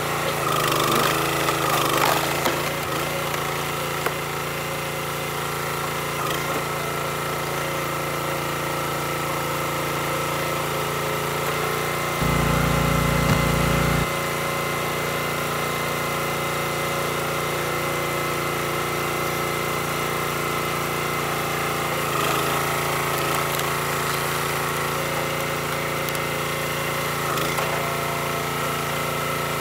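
Small gas engine of a Black Diamond hydraulic log splitter running steadily. Its note dips under load as the ram drives through a round, near the start and again about two-thirds of the way in, with a few knocks and cracks of the wood. About twelve seconds in, a louder low rumble lasts about two seconds and stops abruptly.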